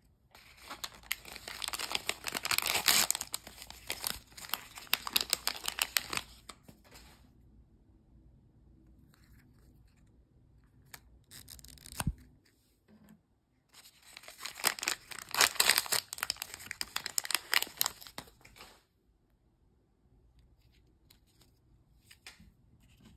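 Close crackling and rustling of a miniature paper toy book handled in the fingers, in two bouts of several seconds each, with a few sharp clicks between them.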